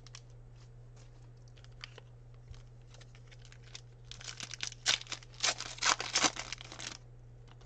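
Foil wrapper of a Fleer Ultra basketball card pack being torn open by hand. After a few faint handling clicks, about four seconds in comes a run of crackling rips and crinkles lasting roughly three seconds.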